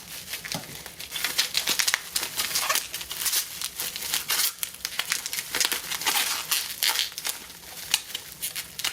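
Packaging being crinkled, handled and torn open by hand, an irregular stream of crackles and rustles as a bullion package is unwrapped.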